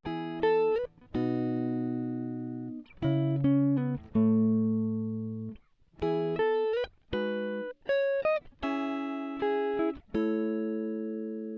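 Instrumental music: a melody of single plucked notes that ring and fade, several of them bending or sliding in pitch.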